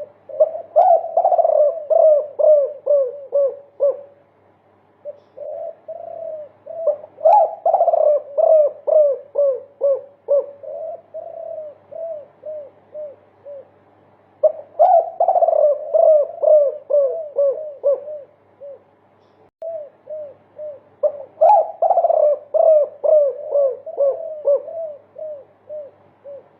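Spotted doves (derkuku) cooing in a 'multi-kuk' song: rapid runs of repeated low coos, in four bouts with short pauses between.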